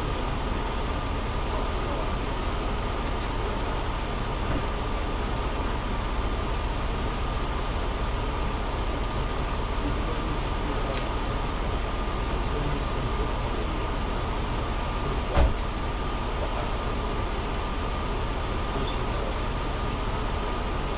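Truck engine idling steadily, with a faint steady whine over it; a single sharp knock about fifteen seconds in.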